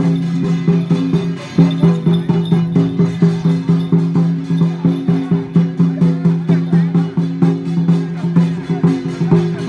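Loud music with a quick, steady percussive beat, like a wood block, at about three strokes a second over sustained low tones.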